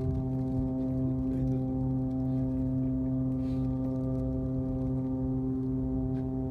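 Ship's horn blowing one long, steady blast, sounded to greet the new year at midnight.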